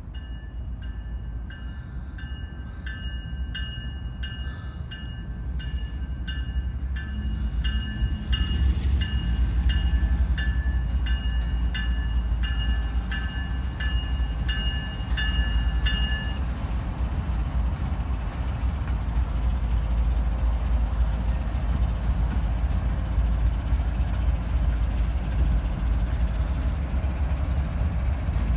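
Union Pacific diesel locomotives of an empty grain train, led by GE C45ACCTE 7966, approach and pass, their engine rumble growing louder from about eight seconds in. A bell rings steadily at about two strikes a second and stops about halfway through.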